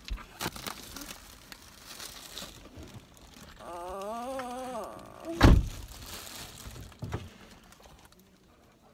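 Rustling of plastic bags and cloth with scattered knocks inside a car, a child's drawn-out wavering groan near the middle, and a single heavy thud about five and a half seconds in, the loudest sound.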